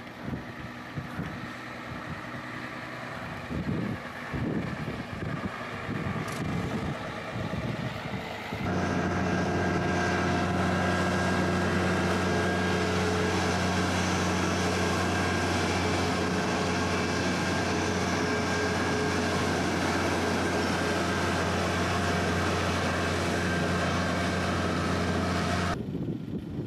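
Heavy airport snow-clearing trucks running on a wet runway. In the first third it is an uneven truck noise; then a Mercedes-Benz truck with a front snow plough and a towed Vammas runway sweeper sets in with a loud, steady hum at constant speed, which cuts off abruptly near the end.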